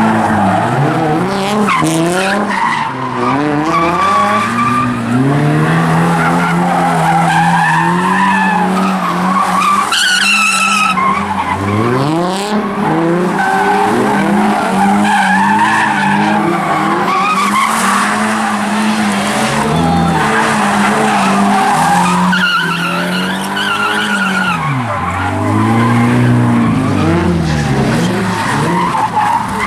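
Toyota 86-platform coupe's flat-four engine revving up and down again and again as the rear tyres spin and skid through donuts, with constant tyre squeal.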